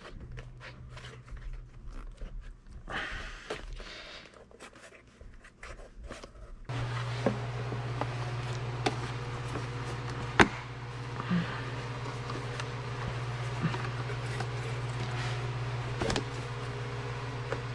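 Stiff plastic intake parts being handled and pushed together, rustling, scraping and clicking: the air inlet scoop being fitted into the new heat shield. A steady low hum with a hiss starts abruptly about a third of the way in, and there is one sharp click a little past the middle.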